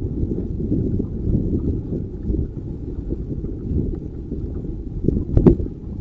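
Wind buffeting the microphone in a steady low rumble, with a short knock about five and a half seconds in.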